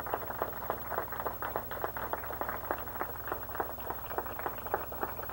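Audience clapping: many quick, sharp claps, several a second.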